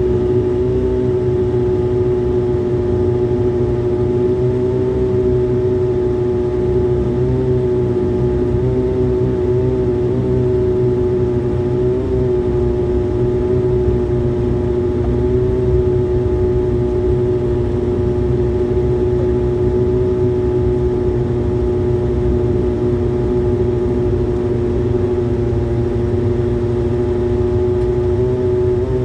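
Airliner engines heard from inside the passenger cabin while the aircraft taxis after landing: a steady drone with a constant tone over a low rumble.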